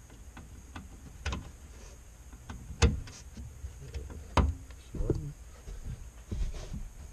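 Subaru BRZ trunk side trim panel and its plastic fasteners being worked loose by hand and with a small pry tool: a series of clicks and knocks, the two loudest about 3 and 4.5 seconds in.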